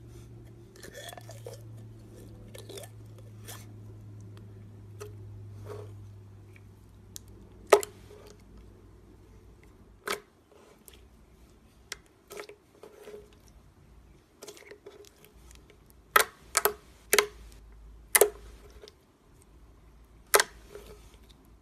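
Thick slime being squeezed and kneaded by hand, with soft sticky squishing and a string of sharp clicking pops, the loudest clustered close together in the last few seconds. A low steady hum sits underneath until about halfway, then stops.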